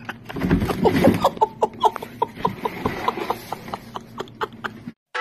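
A voice making a rapid run of short, evenly spaced sounds, about four a second, that cuts off abruptly near the end.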